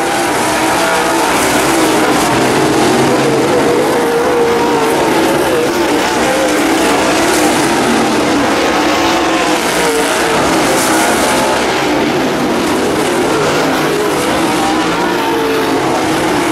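Several dirt late model race cars running together around a dirt oval, their V8 engines overlapping in a continuous loud drone whose pitch wavers up and down as the cars go through the turns.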